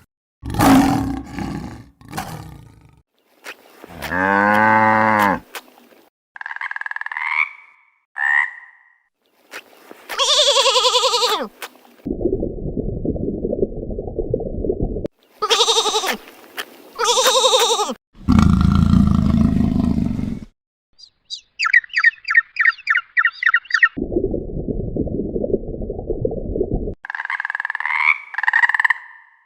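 A string of different animal calls cut one after another. They include drawn-out calls with a clear pitch, short chirps, low rough roaring sounds lasting a few seconds each, and a fast pulsing trill about two thirds of the way through.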